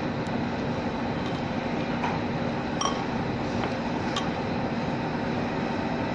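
Steady background machine noise with a faint hum, and a few light metallic clicks about two, three and four seconds in as the grease pump's metal parts are handled and turned by hand.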